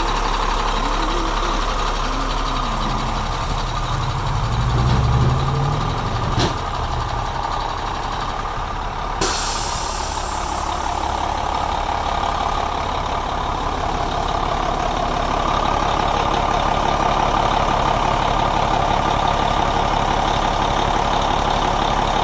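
A vehicle engine running steadily, with a louder low stretch about five seconds in and a single sharp click a little later. The sound changes abruptly about nine seconds in, then the drone carries on.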